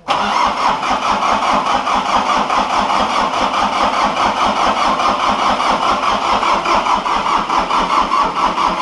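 Farmtrac 360 DTC compact tractor's diesel engine turning over in the cold with an even, rhythmic pulse, struggling to start and blowing white smoke.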